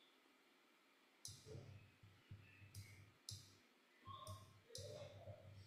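Faint clicks of a computer mouse, about five short clicks over a few seconds, with a low hum cutting in and out alongside them.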